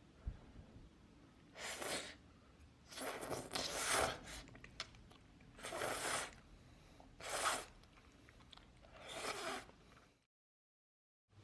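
Five short bursts of rustling, tearing-like noise, the longest about a second, then the sound cuts out abruptly near the end.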